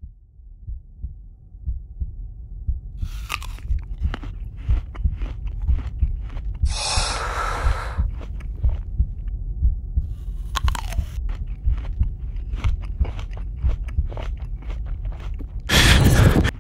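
Low, heartbeat-like thumping sound effect that grows louder over the first couple of seconds, with scattered clicks and two short hissing swells.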